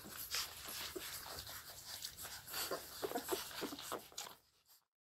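Four-week-old Scottish deerhound puppies suckling at their mother: a run of wet smacking clicks mixed with short squeaks and grunts. The sound dies away near the end.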